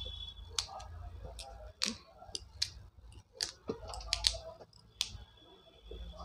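Fresh cauliflower being snapped into florets by hand and trimmed with a knife over a steel plate: a series of sharp, crisp cracks, roughly one every half second to second, with knife taps against the plate.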